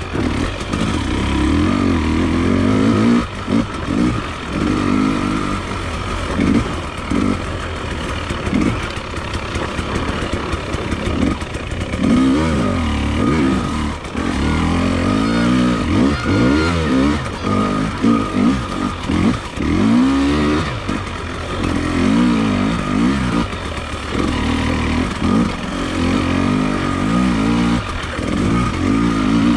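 Enduro motorcycle engine being ridden hard, revving up and dropping back over and over as the throttle opens and closes.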